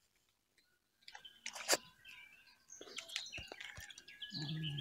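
Small birds chirping in short high calls, with one sharp click about a second and a half in. Near the end a hen's low drawn-out call begins.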